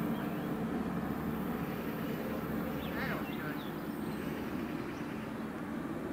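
Low, steady rumble of a train moving away from the level crossing, slowly fading. A brief bird call cuts in about halfway through.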